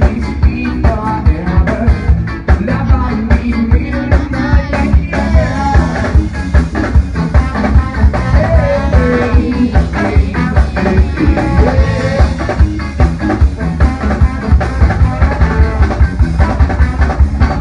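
A band playing an upbeat rock song: drum kit keeping a steady, driving beat under guitar, with a sung vocal line over it.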